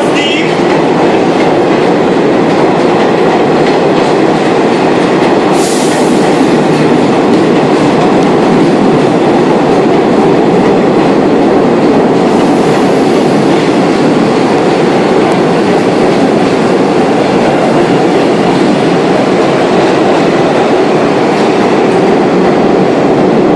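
Vintage Redbird subway train rolling into a station, its wheels and cars giving a loud, steady rumble and clatter on the rails. Two brief high-pitched sounds come through, about six and twelve seconds in.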